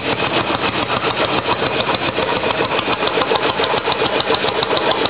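Small antique gasoline engine with large flywheels running steadily at a rapid, even beat.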